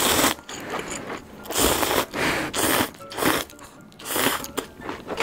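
A person slurping instant ramen noodles from a cup: several quick, noisy slurps with short pauses between them.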